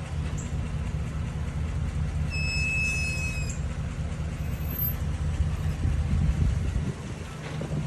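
Ram 1500 pickup's steady low running hum, with a brief high-pitched squeal about two seconds in that lasts roughly a second and drops slightly in pitch: the brake noise that comes on as the truck comes to a stop.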